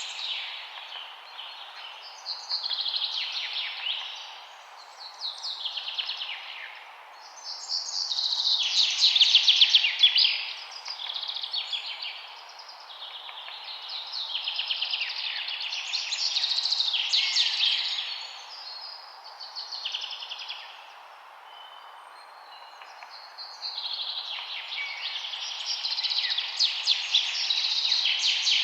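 Songbirds singing: repeated phrases of fast, high trills every few seconds, many of them falling in pitch, over a steady background hiss.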